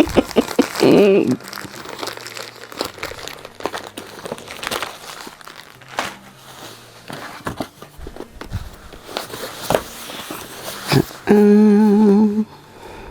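Packaging being opened: crinkling and rustling, with small clicks and snips, as sellotape on a parcel is cut through. Near the end comes a short hummed note with a wavering pitch.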